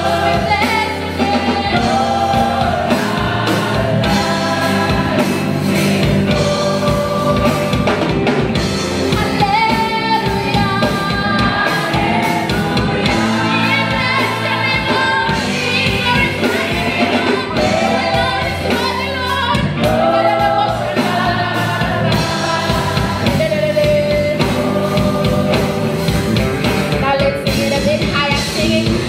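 Live gospel praise singing by a group of women vocalists, several voices together, over a band with electric bass.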